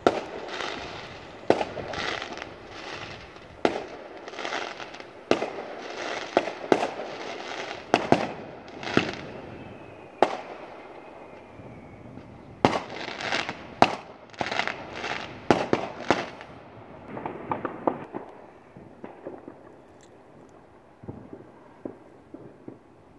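Fireworks going off: a rapid series of sharp bangs over continuous crackling, in two volleys about ten seconds and four seconds long, then thinning out to scattered crackles and pops that fade toward the end.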